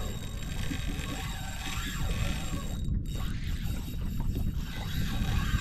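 Spinning reel's drag ratcheting as a hooked fish pulls line off against a loosened drag.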